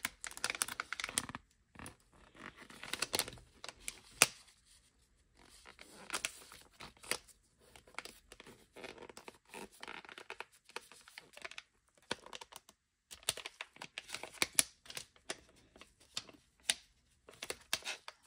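Plastic packaging of a culture syringe being crinkled and tugged by nitrile-gloved hands trying to tear it open, without getting it open. Irregular rustling with sharp crackles and short pauses.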